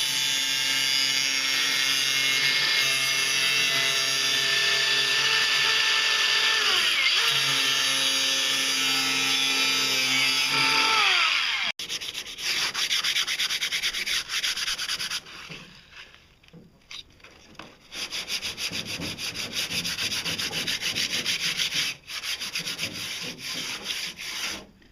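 Cordless angle grinder running steadily while it trims a fiberglass edge; its whine sags about seven seconds in and falls again as it winds down, then cuts off suddenly. After that, a hand sanding pad scrubs the fiberglass edge in quick back-and-forth strokes, pausing briefly a couple of times.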